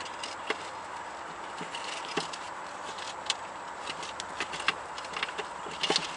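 Irregular light metallic clicks and taps from transmission pan bolts being lined up and started by hand into a Toyota Corolla's pan, with a small cluster of clicks near the end, over a steady background hiss.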